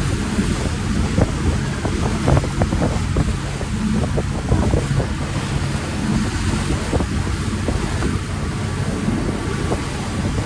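Wind gusting over the microphone aboard a moving ferry, over the low steady hum of its engine and water washing past the hull.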